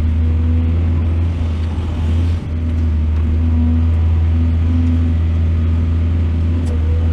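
Excavator's diesel engine running steadily, with a short dip in level about two and a half seconds in.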